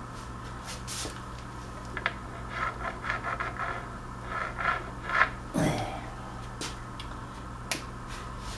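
Felt-tip marker scratching on the wooden extension as it is marked: a run of short strokes between about two and five seconds in, then a louder knock and a few light clicks of handling.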